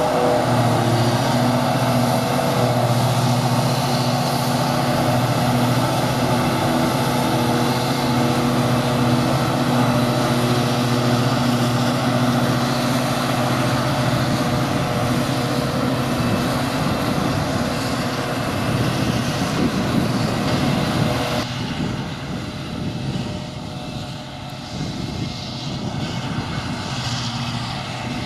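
Forage harvester and tractor engines working in a grass silage harvest: a loud, steady, deep engine drone. About 21 seconds in, the sound abruptly becomes duller and quieter.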